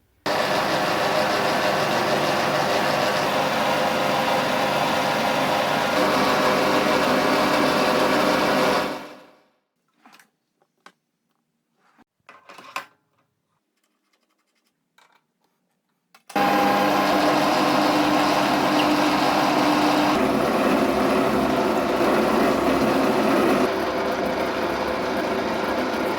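Lathe running steadily, then winding down and stopping about nine seconds in. A few light clicks and knocks come during the pause, then it starts up again abruptly and runs on.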